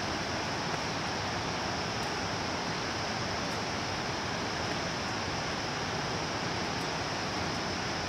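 Steady, even rushing noise with no distinct strikes, calls or voices.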